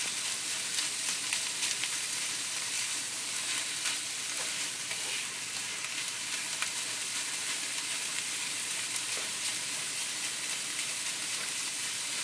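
Ground beef frying with peppers and onions in a hot nonstick skillet: a steady sizzle, with scattered light clicks and scrapes as a spatula breaks up and stirs the meat.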